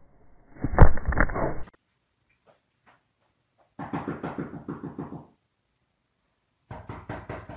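A loud thump and scraping rub on the microphone about a second in, as a dog's body knocks into the phone filming it. A quieter rhythmic sound follows midway, and short clicks come near the end.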